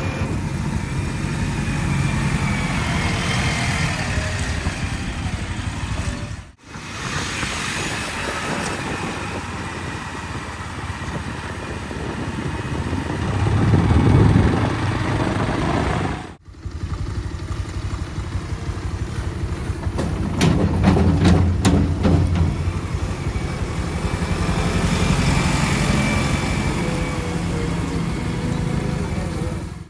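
Diesel engine of a JCB 3DX backhoe loader running, rising in revs twice as it works the soil. There is a burst of rattling clatter about two-thirds of the way through.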